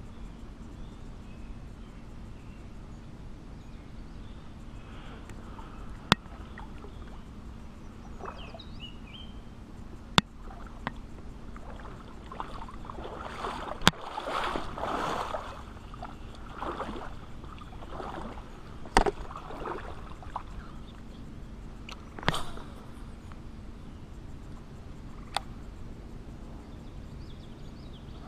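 Shallow pond water sloshing and splashing around wading legs, in swells that are loudest around the middle, with about six sharp ticks spaced a few seconds apart.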